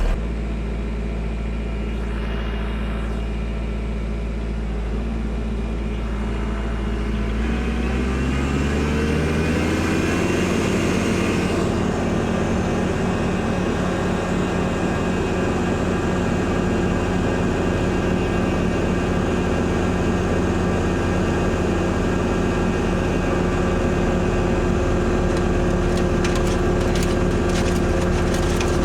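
Kubota tractor's diesel engine idling, then revved up over a few seconds about a quarter of the way in and held at a steady higher speed, throttled up to drive the snowblower.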